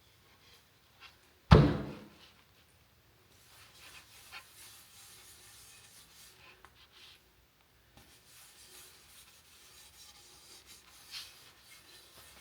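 A sharp knock about a second and a half in, then soft, steady rubbing as board butter paste is worked into the surface of a wooden pizza peel.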